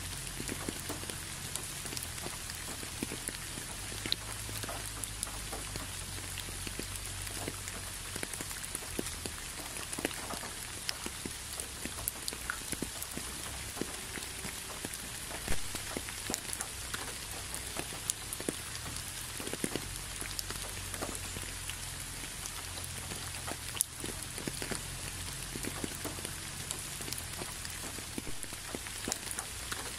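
Steady rain: many separate drops tapping at irregular moments over a constant hiss, with a low rumble underneath.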